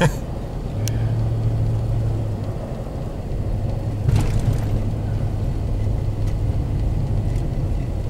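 Vehicle engine and tyre noise heard from inside the cab while driving on a snow-covered road: a steady low hum over a rumbling road noise, with a brief louder swell about four seconds in.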